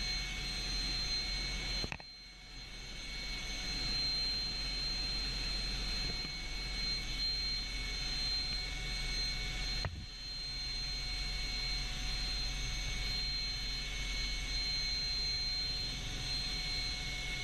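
Tiger armed reconnaissance helicopter's turboshaft engines running, a steady high turbine whine over a rushing noise; the sound dips briefly twice.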